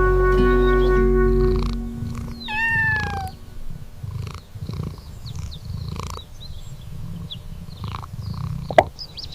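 Background music for about the first two seconds, then a single cat meow that falls in pitch and levels off. A low rumbling cat purr follows, with faint scattered chirps and one short sharp click near the end.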